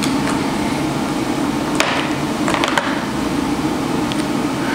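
Steady mechanical hum throughout, with a few light metallic clicks of a hairpin cotter pin being worked in and out of a go-kart's metal nose-fairing bracket: one sharp click nearly two seconds in and a quick cluster of three around two and a half seconds.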